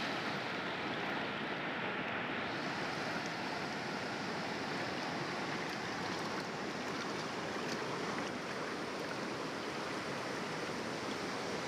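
Steady rush of water from heavy rain falling and the river flowing, an even hiss with no breaks.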